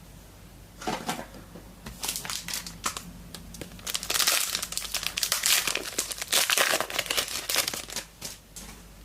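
A foil trading-card pack wrapper crinkling and tearing as it is opened by hand, in irregular rustles that grow busier and louder after the first few seconds.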